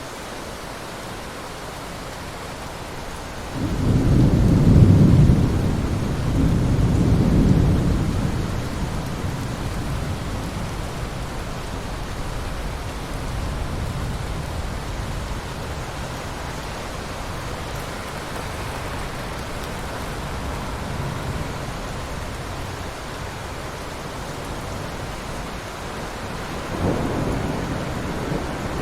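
Steady heavy rain falling, with a deep roll of thunder that breaks in suddenly about four seconds in, swells twice and slowly fades, and a second rumble of thunder starting near the end.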